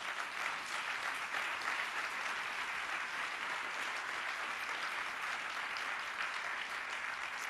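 Audience applauding steadily, the dense patter of many hands clapping.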